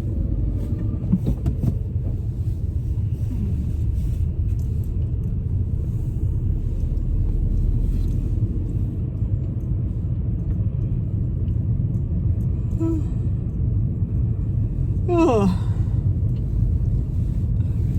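Steady low rumble of a car heard from inside the cabin. About fifteen seconds in, a person's short yawn, its pitch falling steeply.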